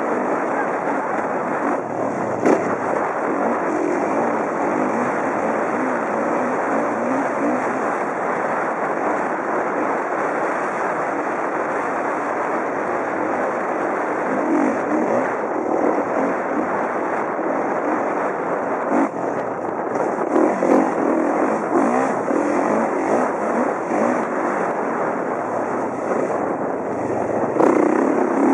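2011 Kawasaki KX450F motocross bike's single-cylinder four-stroke engine running steadily under load while riding, heard close up from a helmet camera with wind rush. A few sharp knocks break in, once about two seconds in, once around the middle, and once near the end.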